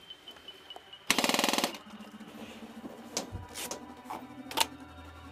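Airsoft electric gun firing one short full-auto burst of just over half a second, followed by a few separate sharp clicks.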